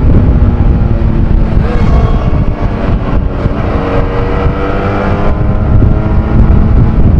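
Benelli Tornado 302 motorcycle's parallel-twin engine running under way, its note shifting slowly in pitch with the throttle, over heavy wind rumble on the microphone.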